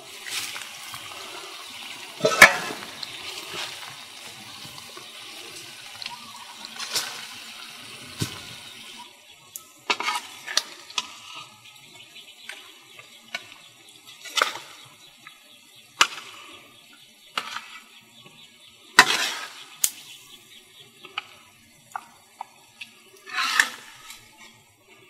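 Steady hiss of a simmering, steaming wok of fish for the first several seconds, then a metal spoon or ladle clinking and scraping against the aluminium wok and pot at irregular intervals as the fish curry is stirred and ladled.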